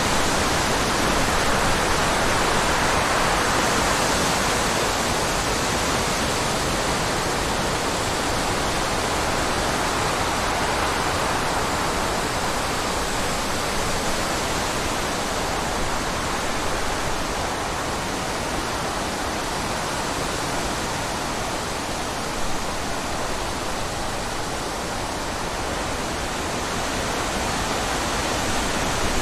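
Steady rushing water, an even hiss-like roar that swells and eases slightly but never stops.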